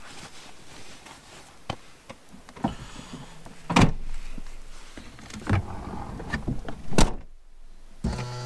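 Gear being packed at a vehicle: a string of knocks and thuds, with two heavier door slams about four and seven seconds in. After a moment of silence, music starts near the end.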